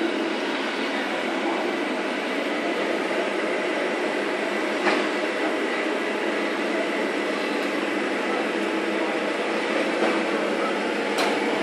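Steady whirring hum of radio-controlled scale model trucks driving, their electric motors and gearboxes running on, broken by three short sharp clicks.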